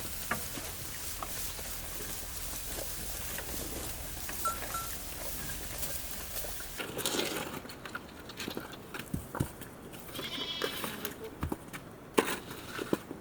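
Livestock bleating a few times, over a steady background hiss that drops away about halfway through.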